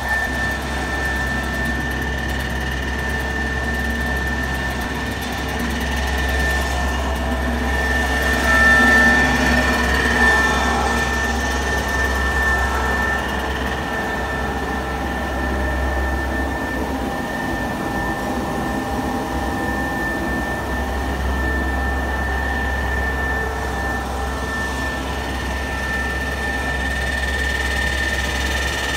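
Waste-tyre rubber powder grinding mill running: a steady machine drone with a high whine over a deep hum, briefly louder about a third of the way through.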